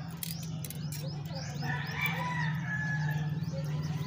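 A bird's drawn-out call, about a second and a half long near the middle, with short high chirps from small birds and a steady low hum underneath.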